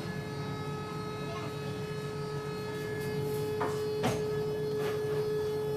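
A steady hum holding one constant tone, with a few short knocks about three and a half to five seconds in.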